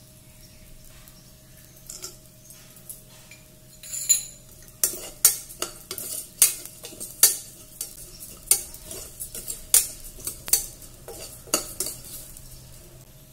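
Steel ladle stirring rice and nuts in a stainless steel pressure cooker, clinking and scraping against the pot. After a few light clicks, the sharp strikes come one to two a second from about five seconds in. A faint steady hum runs underneath.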